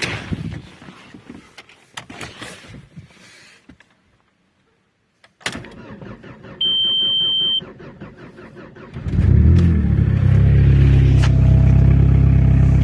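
Scattered handling noises, then a click and a single high beep lasting about a second. About nine seconds in, a straight-piped VW 1.9 TDI AHH four-cylinder turbodiesel cranks and catches from a cold start at −13 °C, then idles loudly and steadily.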